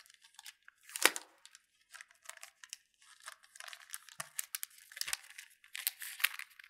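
Clear protective plastic film being peeled off a smartphone and handled: crackling and crinkling of the thin wrap, with a sharp snap about a second in and denser crinkling in the second half.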